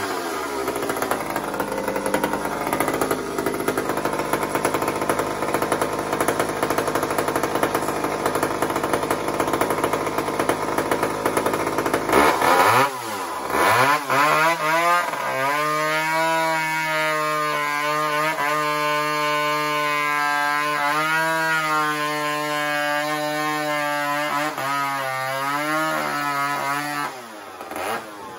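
Two-stroke chainsaw cutting lengthwise down through a thick wooden slab at full throttle, the engine note wavering under load. About halfway through, the revs rise and fall once and the saw settles into a steadier high-pitched run. The sound drops off near the end as the cut finishes.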